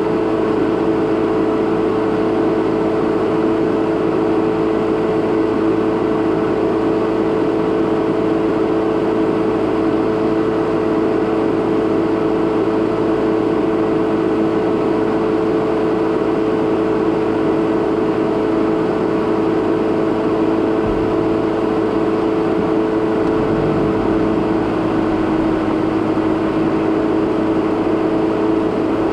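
Steady hum and drone of a 2017 Jeep Renegade Trailhawk's 2.4-litre four-cylinder engine idling, holding two steady tones, with brief low rumbles about two-thirds of the way through. Near the end the Jeep moves off along the sandy track.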